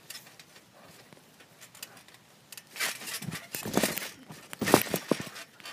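Jumping and flipping on a trampoline: after a quiet start, a run of thumps, rustles and phone-handling noise begins about halfway through, loudest near the end.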